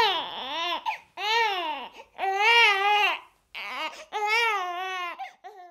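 Crying: a string of high-pitched, wailing sobs whose pitch rises and falls, with short breaks between them.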